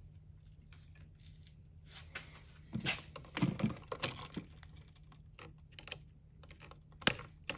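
Small clicks and rattles of an old wall light switch and its wires being handled and worked loose, a busy cluster about two to four and a half seconds in, and one sharp click near the end.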